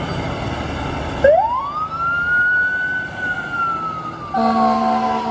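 A low vehicle rumble, then a fire truck siren that sweeps up to a high wail about a second in and slowly falls. Near the end a fire truck air horn starts blasting a steady chord over the falling siren.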